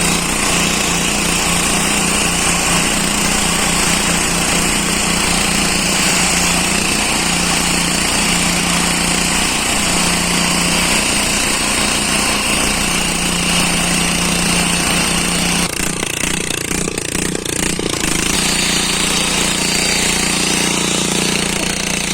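Small engine of a rail weld trimmer running steadily while the machine trims the excess metal off a fresh thermit weld on a rail. About sixteen seconds in, the steady hum breaks up and dips for a couple of seconds, then settles again.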